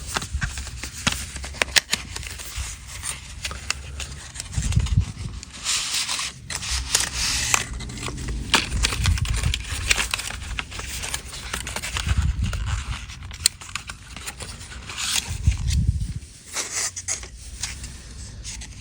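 A mechanical pencil's box being opened and its packaging handled: irregular scraping, crackling and clicking of cardboard and plastic, with occasional dull low knocks.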